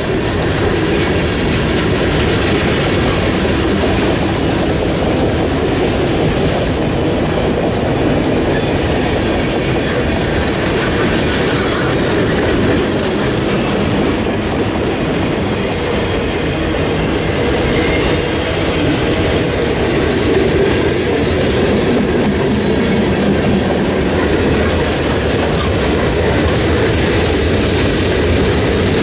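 Freight cars of a long mixed train rolling steadily past, with a continuous rumble and clickety-clack of wheels over rail joints. There are a few brief high squeaks from the wheels in the middle.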